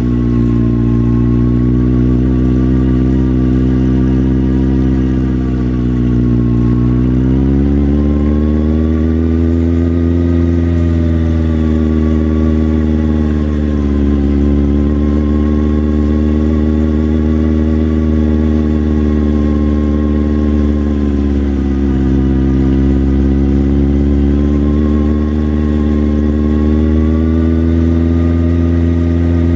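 Motorcycle engine running steadily while riding, its revs rising and easing off gently several times: picking up about a quarter of the way in, dropping back around the middle, and picking up again near the end.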